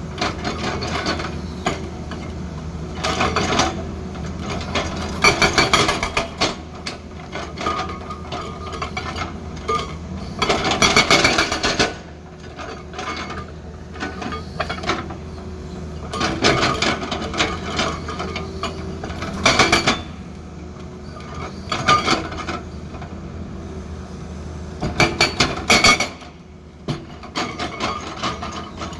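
Tata Hitachi excavator working hard stone: its diesel engine runs steadily under repeated bursts of dense, sharp metal-on-rock impacts as the stone is struck and broken.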